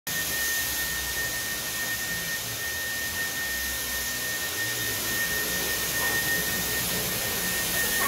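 Cordless stick vacuum cleaner running steadily: a constant rushing of air with a thin high whine from the motor.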